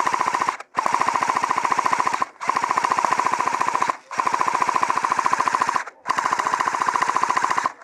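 Airsoft gun firing on full auto in long bursts, about five in a row with short breaks between them, each a fast, even rattle of shots.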